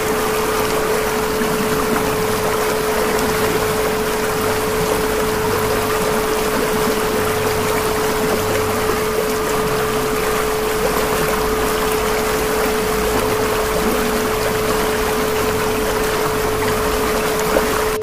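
A steady 432 Hz tone held unchanged over a constant hiss like rushing water or rain.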